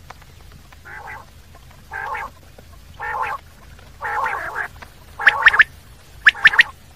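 Common quail calling: a run of about five soft, hoarse notes about a second apart that grow louder, then near the end the sharp three-note 'whit, wit-wit' song.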